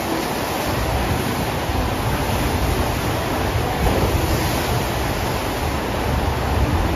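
FlowRider surf simulator's pumped sheet of water rushing up the padded slope in a steady, loud roar of flowing water.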